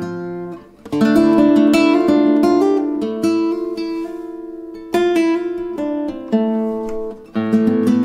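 Solo nylon-string flamenco guitar playing: after a brief pause about half a second in, strong plucked chords and melody notes ring out and decay, with fresh attacks about five and six seconds in and a quicker run of notes near the end.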